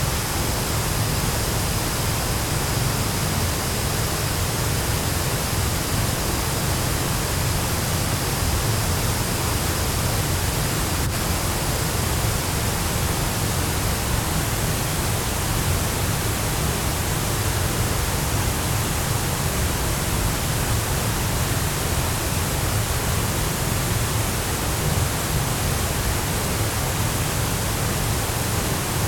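Waterfall pouring steadily: an even, unbroken rush of falling water with a deep rumble underneath.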